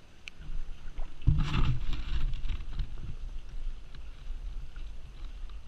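Kayak paddle splashing into the water, loudest about a second and a half in, over a low wind rumble on the microphone.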